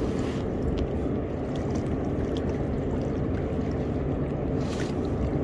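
Steady low rumbling noise of wind on the microphone and choppy river water lapping against a rocky shore.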